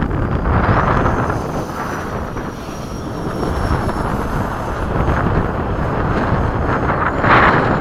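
RC model MiG-21 jet's electric ducted fan whining in flight, a thin high whine that rises about a second in and then slowly sinks, over heavy wind rushing on the microphone. A louder rush swells near the end.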